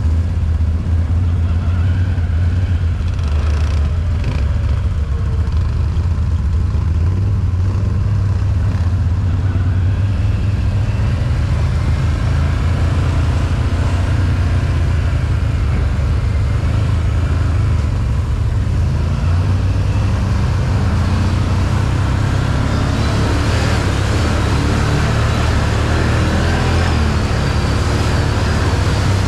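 Can-Am 1000 engine running steadily with a deep low drone, and a rushing hiss building over it in the last several seconds.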